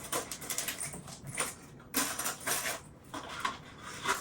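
Disposable utensils and other small kitchen items being handled and set into a cupboard: irregular light clicks, clatter and rustling, with sharper knocks about two seconds in and near the end.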